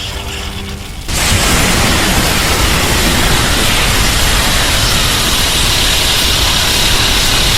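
Kaiju film sound effect: a fainter whirring with a few steady tones, cut off about a second in by a sudden loud, steady rushing blast of noise that holds on.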